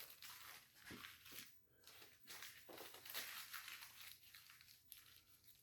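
Faint rustling and crinkling of paper being handled and gathered up, in several short scattered bursts.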